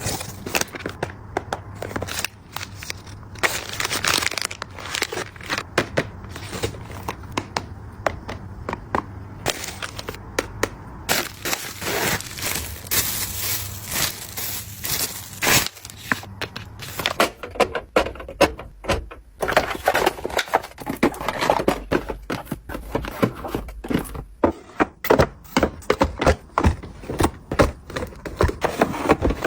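Packaging being handled and opened: irregular crackling and crinkling with many small clicks, denser for a few seconds in the middle.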